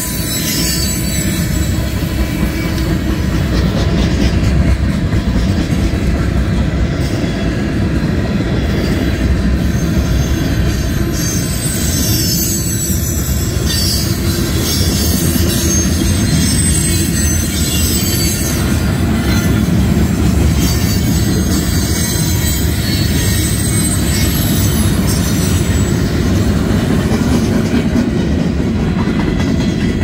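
CSX freight train's boxcars rolling past close by: a steady heavy rumble of wheels on rail, with high-pitched wheel squeal coming and going.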